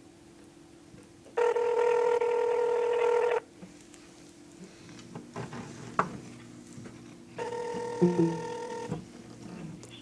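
Telephone ringback tone heard through a phone's speaker while an outgoing call rings: two rings about two seconds long, about four seconds apart. The second ring is cut short.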